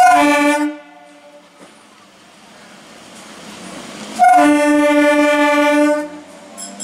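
Horn of an Indian Railways EMU local train sounding twice as it approaches: a short blast, then a longer steady blast about four seconds later. Between them the train's running noise grows louder as it draws near.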